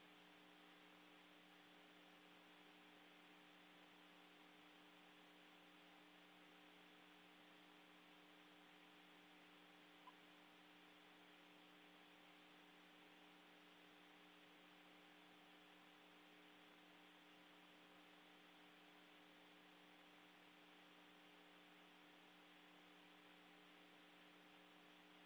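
Near silence: a faint, steady electrical hum with hiss, and one tiny click about ten seconds in.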